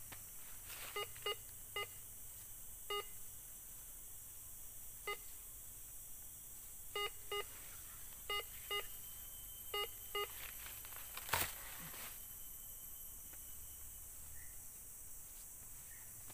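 Metal detector giving short, high beeps, about eleven of them, often in pairs, as the search coil is swept back and forth over a buried metal target in the dug soil. A single sharp click follows a little after the beeps stop.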